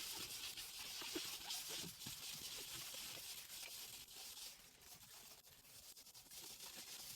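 Faint scrubbing and dabbing of an applicator working recoloring balm into a plastic dashboard panel, with small scuffs and taps throughout.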